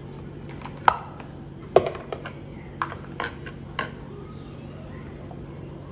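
Plastic food containers and lids being handled and set down on a kitchen counter: a run of light clicks and knocks, the sharpest about one and two seconds in, over a low steady hum.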